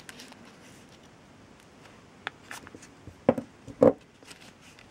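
Candles being picked up, moved and set down on a table, with soft handling rustles and a few light knocks. The two loudest knocks come about half a second apart, a little past three seconds in.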